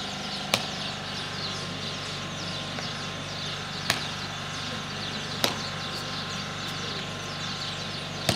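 Open-air ambience with a steady low hum and faint high twittering, broken by four sharp clicks at uneven intervals.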